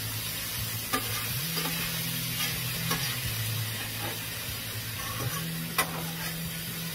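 Sliced flank steak sizzling in sauce on a Blackstone flat-top griddle while a spatula stirs and turns it. A handful of sharp clacks and scrapes come from the spatula hitting the griddle, the strongest about a second in and just before the end.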